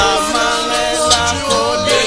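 Gospel song sung by a male lead with a choir in harmony, with sharp percussive hits every so often.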